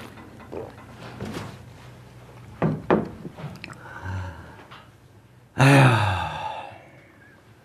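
Two sharp knocks come about three seconds in. Later a man lets out a loud, drawn-out groan of 'aiya' that falls in pitch, a lament of pain and self-pity.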